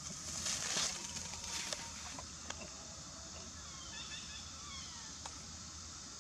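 Macaques scampering over dry leaf litter: a short burst of rustling about half a second in, then a few light ticks and faint high chirps over a low steady hum.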